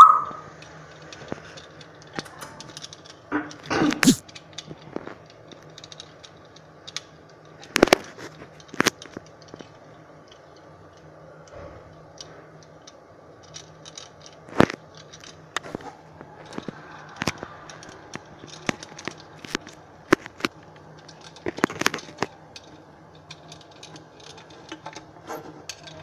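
African grey parrot biting and chewing a small plastic toy car, its beak making irregular clicks, taps and crunches, with a louder knock every few seconds.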